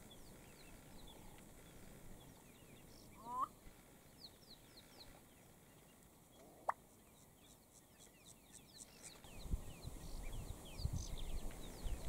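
Male black-bellied bustard's display call: a short wavering croak, then about three seconds later a single short sharp pop. Thin high chirps sound in the background, and a low rumbling noise comes in during the last couple of seconds.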